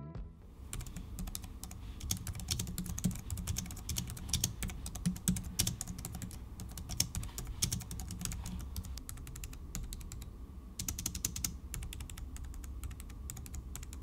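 Fast typing on a Logitech MX Keys S's low-profile scissor-switch keys: a quiet, soft run of light key clicks with a brief pause about ten seconds in. The keys are described as practically silent.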